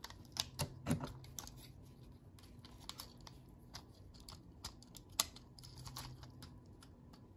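Plastic parts of a Transformers Sandstorm action figure clicking and clacking as hands fold and twist it from one mode to another. The light clicks come irregularly, one sharper snap about five seconds in.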